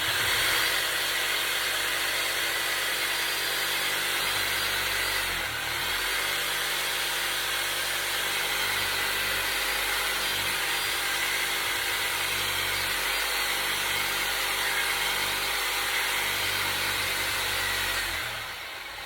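Electric power tool motor running under load. It dips briefly about five seconds in, then winds down near the end.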